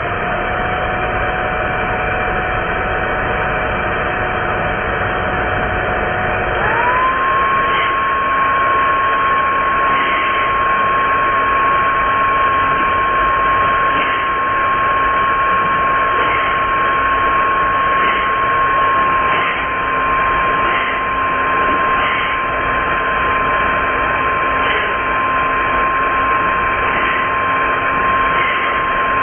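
Hair dryer running: a steady motor whine over rushing air. About six seconds in, the whine steps up to a higher pitch as the dryer switches from low to high fan speed. Past the middle, the pitch and level dip slightly as the heat is switched on.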